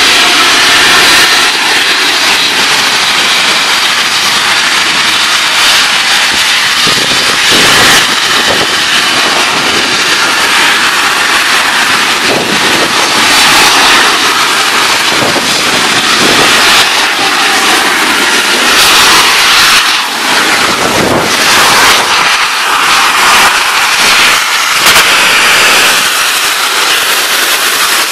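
Steam locomotive LNER Peppercorn A1 Pacific No. 60163 Tornado blowing steam from its open cylinder drain cocks as it starts away: a loud, continuous hiss that surges and eases.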